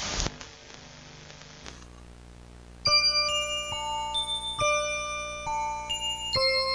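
A brief burst of static, then faint hiss, then about three seconds in a melody of clear, bell-like electronic tones stepping from note to note every half second or so, as in an emergency alert system alarm.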